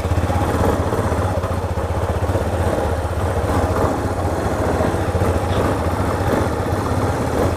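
Motorcycle engine running at low speed on a slow ride over grass, a steady low note made of rapid, even firing pulses.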